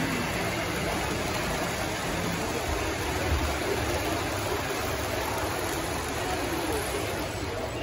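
Steady rushing background noise of a busy exhibition hall, with faint distant voices blended in.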